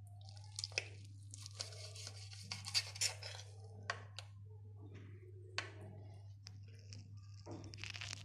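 Stainless-steel knife and fork scraping and clinking on a ceramic plate while cutting through a rolled egg omelette: a stretch of scraping in the first few seconds, then several separate sharp clinks, and another scrape near the end.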